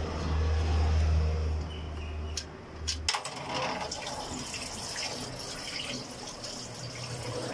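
Engine oil pouring in a stream from the oil pan drain hole of a 2016 Kia Cadenza and splashing into a catch pan below, as it drains for an oil change. The pouring takes over about three seconds in, after a low rumble and a couple of sharp clicks.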